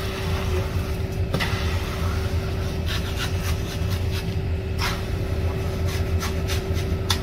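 Concrete mixer truck's diesel engine running steadily, a low rumble with a steady hum, while concrete is discharged down its chute; scattered short clicks and knocks sound over it.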